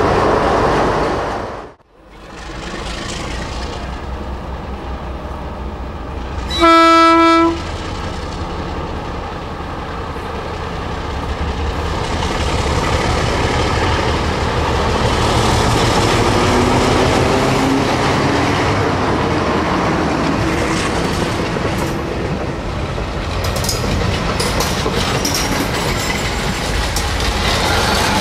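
ALCO DL-500C diesel-electric locomotive sounding one short horn blast about a quarter of the way in, then its engine running louder as it approaches, with wheel clatter over the rails as it passes close by near the end.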